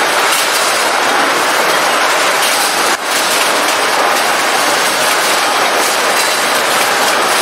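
Automated ball-bearing drawer-slide assembly machinery running: a loud, steady, dense metallic clatter, with a brief dip about three seconds in.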